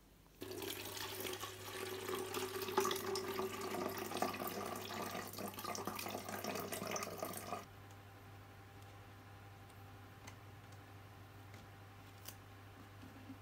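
Water poured from a plastic jug into a cut-down plastic bottle, a steady pour that starts suddenly about half a second in and stops abruptly after about seven seconds. After it, only faint room hum with a couple of small clicks.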